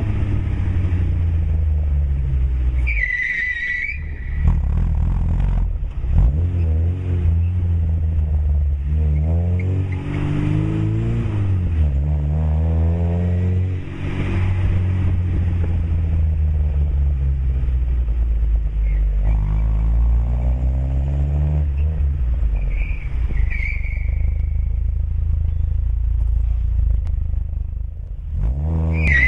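Lada 2107's four-cylinder engine running through a 50 mm sport exhaust with a stainless tip, idling and blipped several times, the pitch rising and falling with each rev. Brief high-pitched sounds come about three seconds in and again near the end.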